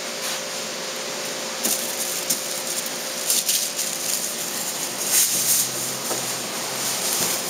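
Steady hiss with a faint hum, and now and then soft clicks and rustles of fishing tackle being handled: a lead sinker on a clear rubber cushion tube and nylon line, with the loudest handling noises a little after the middle.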